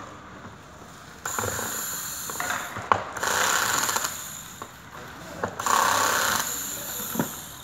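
Cordless drill-driver running in three short bursts of about a second each, driving screws into an office chair's seat, with a few sharp clicks between the bursts.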